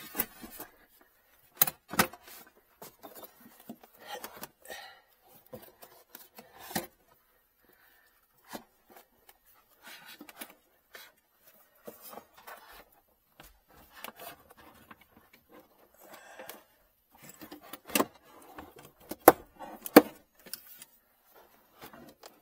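Car battery being lowered into its tray and shifted into place by hand: sharp knocks and clunks of the case against the tray and surrounding metal, with softer scraping and rustling between. The loudest knocks come just after the start and in a cluster near the end.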